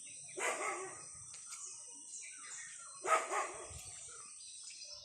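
Dogs barking: two short bouts about two and a half seconds apart.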